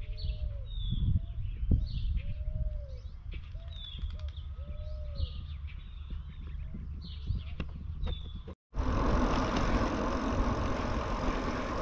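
Several birds calling: a repeated low, arching call and short, high falling chirps, over a light rumble of wind. About eight and a half seconds in this cuts off abruptly and gives way to a steady rushing noise of wind on the microphone while riding a bicycle along a paved road.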